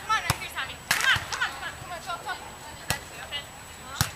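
Beach volleyballs being struck by players' hands and forearms, giving four sharp slaps spread across a few seconds; the loudest comes about a second in.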